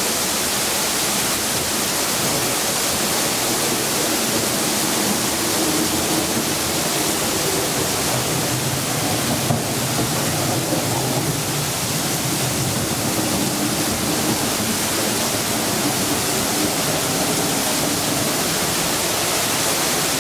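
Heavy downpour of rain: a steady, loud hiss with no let-up.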